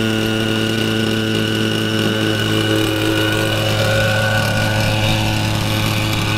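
Small engine of a scale Hughes 500 radio-controlled model helicopter idling steadily, with an even, unchanging pitch.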